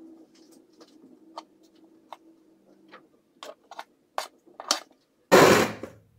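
Spatula scraping and tapping on a cream-covered cake and its metal tray, a scatter of light clicks, then several sharper knocks about three and a half seconds in. Near the end a short, loud rush of noise lasts under a second.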